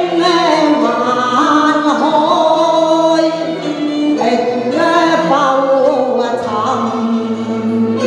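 A woman singing into a microphone over a stage PA, her voice gliding and wavering through long held notes, with instrumental accompaniment underneath.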